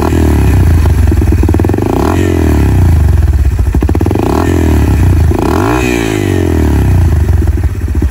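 Yamaha TT-R 230's single-cylinder four-stroke engine running warm through a full DR.D aftermarket exhaust, freshly rejetted, idling and blipped up and back down several times on the throttle.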